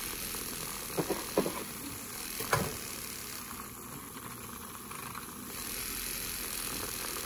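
Battery-operated handheld milk frother running in heated milk in a glass measuring cup, its small motor making a steady whir. A few light clicks come about a second in and again a little later.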